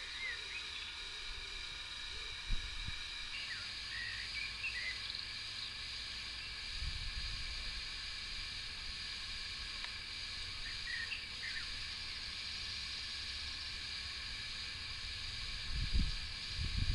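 Outdoor ambience: a steady hiss with a few faint bird chirps, and wind buffeting the microphone in low rumbles, strongest near the end.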